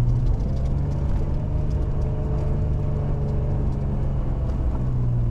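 Old Jeep Cherokee's engine running under load while plowing heavy, compacted snow. The revs step up just after the start, hold steady, then ease back near the end.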